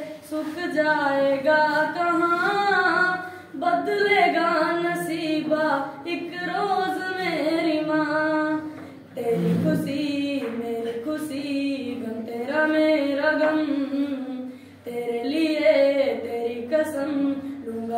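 A boy singing a song solo and unaccompanied in a high, unbroken voice, in long phrases with three short pauses for breath.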